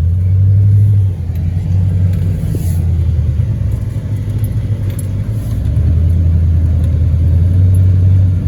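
Vehicle engine running with a loud, deep, low drone whose pitch shifts down and up a few times, as when driving under changing load.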